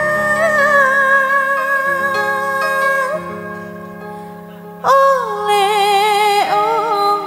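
Gambus band music: a female singer holds long, ornamented notes over sustained instrumental accompaniment. The music fades quieter about three seconds in, and the voice comes back loudly with a new phrase about five seconds in.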